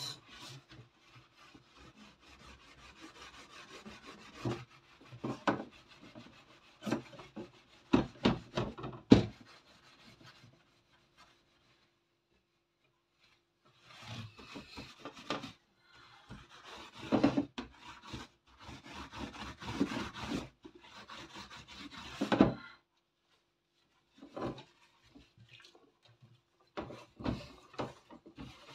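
A soap-loaded scouring sponge scrubbed hard over the metal bars of a greasy oven rack: irregular bouts of rasping rubbing, a few sharp clicks, and a pause of a few seconds around the middle.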